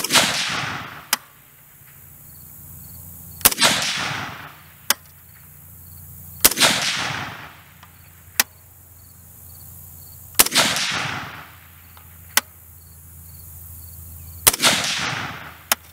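Five rifle shots from a 3D-printed AR-15, fired slowly about three to four seconds apart, each with a long echoing tail. A short sharp crack follows about a second after each shot.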